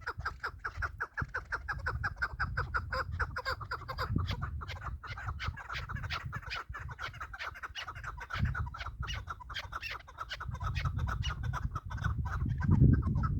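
Chukar partridges calling: a rapid, steady run of clucking 'chuk' notes, several a second, over a low rumble that grows louder near the end.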